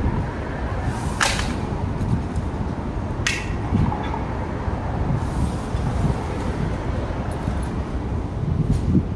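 Passing city street traffic with a low rumble of wind on the microphone, and two short sharp hisses, about one and three seconds in.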